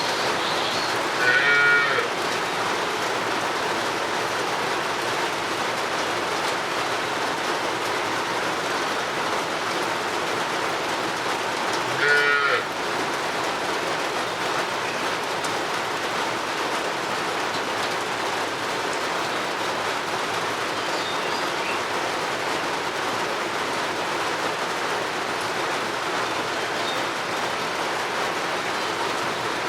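Steady rain falling, with a cow mooing twice, briefly: once about a second in and again about twelve seconds in.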